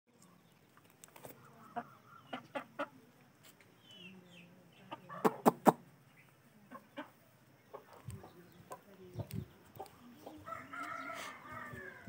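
Parrot-beak Aseel chicken calling: a drawn-out call lasting about a second and a half near the end. Scattered sharp clicks come earlier, the loudest a quick pair about five seconds in.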